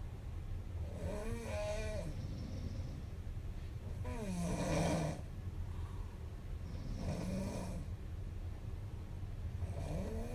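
Young woman snoring in her sleep, one snore about every three seconds with a wavering voiced tone in each; the snore near the middle is the loudest. A steady low hum runs underneath.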